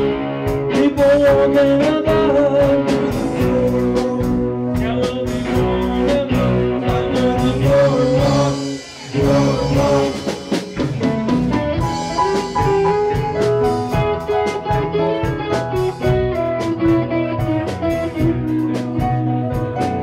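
Live band playing amplified music: electric guitars, bass guitar, keyboard and drum kit, with a brief drop in volume about nine seconds in.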